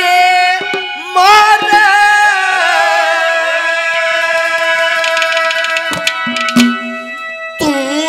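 Haryanvi ragni folk music: a male singer holds a long wordless note over a steady harmonium, with hand-drum strokes here and there and more of them near the end.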